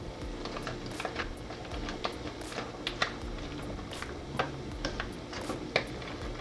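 Faint irregular clicks and light knocks of a spoon stirring crab legs, corn and shellfish in a large aluminium pot of seafood boil, over a steady low hum.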